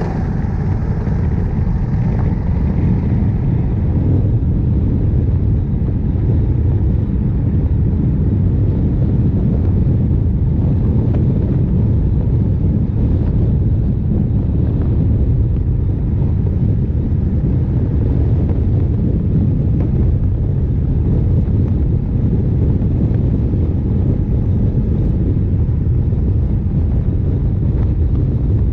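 Honda CRF1100L Africa Twin's parallel-twin engine running at steady cruising speed under a steady low roar of wind on the microphone. The level builds over the first second or two as the bike gathers speed, then holds.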